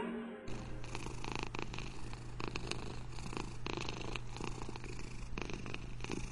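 Domestic cat purring continuously, with a steady low hum underneath.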